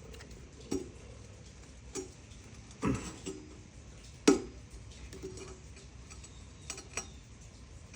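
A handful of scattered light clicks and knocks from handling the mower's drive cable and its fittings, the loudest a little past four seconds in.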